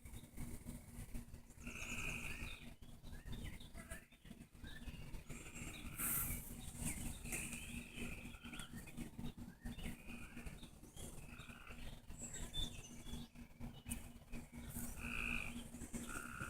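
Frogs calling: short calls about half a second long, repeated at irregular intervals, over a low rumble and a faint steady hum.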